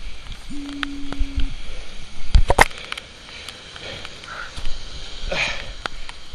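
Heavy rain falling on wet pavement as a steady hiss, with a runner's sharp breath near the end. Two loud knocks about two and a half seconds in from the camera being handled.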